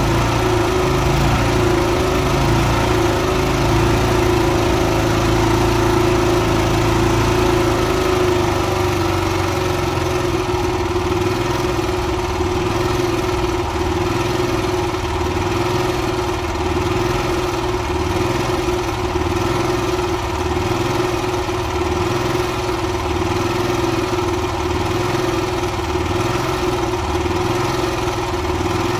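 Honda inverter generator's petrol engine running after its carburetor was cleaned, a steady hum with a constant tone. From about a third of the way in, the low hum rises and falls in a regular cycle about every second and a half.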